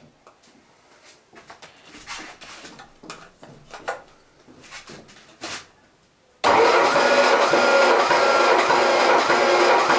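Small clicks and rattles of hands and tools on the engine, then about six seconds in a Ford 302 V8 starts being cranked over by its starter motor with the plugs out, a loud, steady whirring with an even pulse, for a cold compression test of one cylinder.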